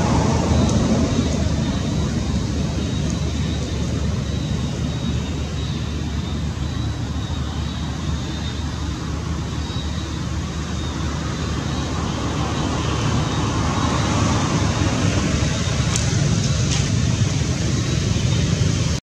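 Steady low outdoor rumble of background noise, with a thin, high, steady whine above it.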